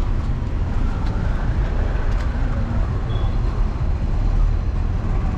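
Steady engine and road rumble from inside a slowly moving car.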